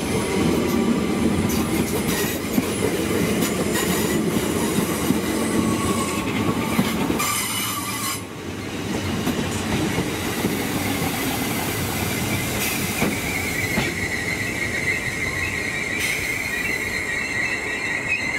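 Merseyrail electric multiple unit moving through the station, its wheels clicking over the rail joints. A high wheel squeal starts past halfway and grows louder near the end.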